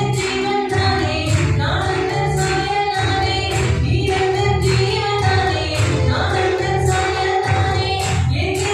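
Christian worship song in Tamil: singing voices over instrumental backing with bass and a steady percussive beat.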